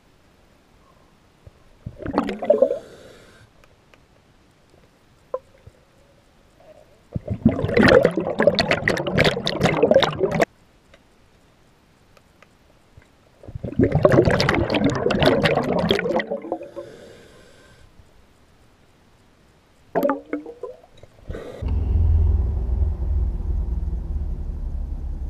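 A diver breathing underwater, heard from under the surface: two long bursts of bubbly, gurgling exhalation, with shorter bursts before and after. Near the end a steady low rumble takes over.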